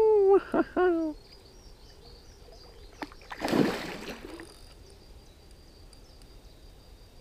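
A hooked fish thrashing at the surface beside a float tube, one brief splash about three and a half seconds in. Before it, during the first second, a man's drawn-out wavering vocal sound.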